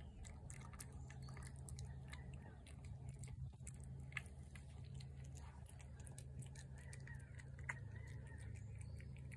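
A cat eating shredded wet food off a ceramic plate: faint chewing with many small wet clicks and smacks. A low steady hum runs underneath.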